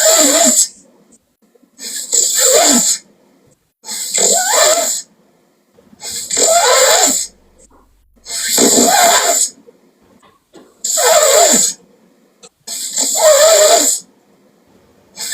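A person snoring loudly: a harsh, rattling snore that repeats about every two seconds, seven times, with quiet breaths between.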